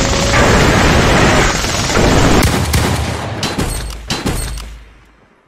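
Anime fight sound effects: a loud, dense rush, then a quick string of gunshots and impacts from about halfway through as a gun is fired into a demon. The sound fades out near the end.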